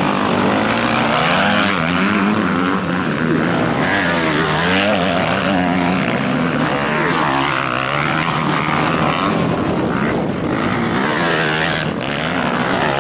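Several motocross bikes' engines revving as they race, their pitches rising and falling and overlapping as riders open and close the throttle through the turns.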